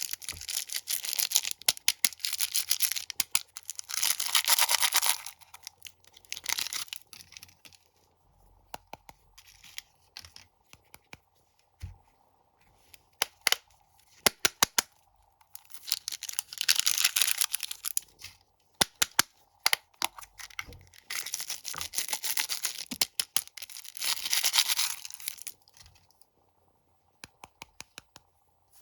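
Close-miked crunching of crunchy cheese snacks, in bursts of crisp crackling a second or two long, separated by short pauses with scattered single crackles.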